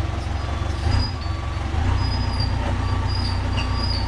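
Telehandler's engine running with its backup alarm beeping in a steady repeating pattern, and a high squeal coming and going from about halfway in.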